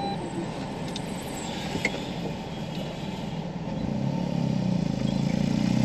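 Steady vehicle engine and road noise, with a light click about two seconds in. Over the last two seconds a motorcycle engine approaches and grows louder.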